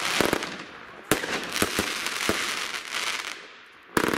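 Aerial fireworks bursting: sharp bangs about a second apart with crackling between them, dying down briefly, then a fresh volley of rapid bangs near the end.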